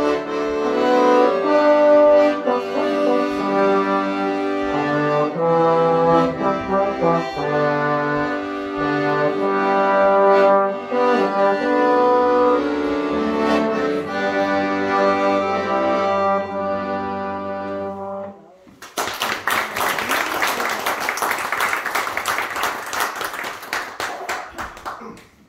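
Slide trombone and piano accordion playing a hymn tune together; the piece ends about 18 seconds in. Audience applause follows for about six seconds.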